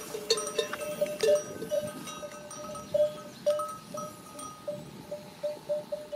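Sheep bells clanking irregularly as the flock stands and shifts about, a few strikes a second, all on the same ringing pitch.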